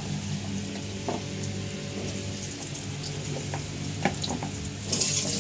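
Cut potato chunks frying in hot oil in a kadai, sizzling softly, with a few light clicks as more pieces go in. Just before the end the sizzling grows much louder.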